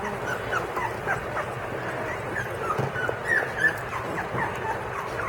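A litter of young puppies, their eyes just opening, whimpering and squeaking for their mother: many short, high, overlapping squeaks and little cries, the sound of hungry pups waiting to be fed.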